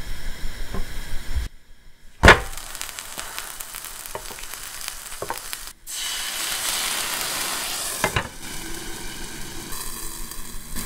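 Sandwich sizzling as it toasts in a hot nonstick pan, with a few clicks and one sharp knock about two seconds in. From about six seconds in, water sprinkled into the hot pan makes the sizzle louder and brighter for a couple of seconds.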